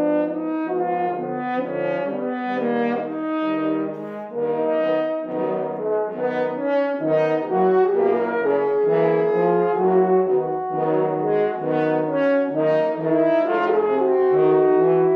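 Brass instruments playing a piece in several parts, with several notes held together and moving in steps.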